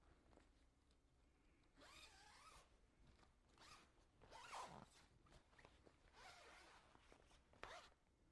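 Faint zipper pulls in several short, separate strokes: the zipper of a plastic body bag being worked.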